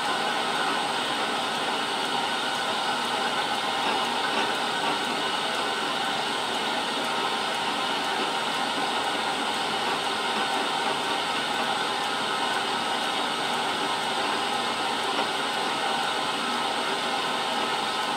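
Milling machine running steadily: an even hiss with a few faint steady tones, unchanging throughout.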